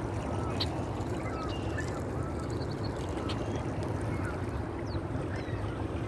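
A steady low rumble as an electric bike rolls along a gravel trail, with many short bird chirps and whistles over it.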